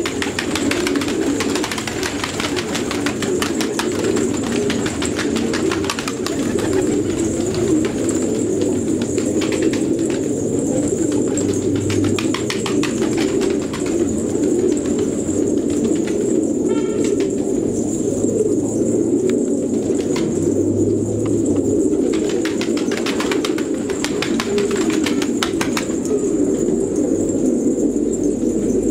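A flock of fancy pigeons cooing continuously in many overlapping voices, with clusters of quick clicks and wing flaps.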